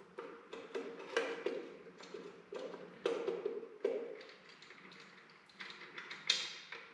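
Irregular light clicks and taps of hand work on tractor wiring: wires, terminals and small hardware being handled and fitted.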